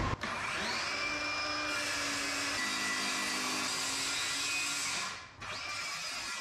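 Cordless circular saw on a guide rail spinning up with a rising whine, then running steadily as it cuts through a sheet of oak plywood. The sound drops out briefly about five seconds in, and the saw comes back up to speed.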